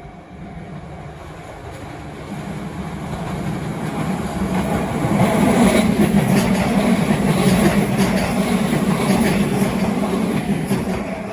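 A train passing through a level crossing: the rumble of wheels on the rails grows louder, is loudest about six to nine seconds in with a run of clattering clicks, then fades away.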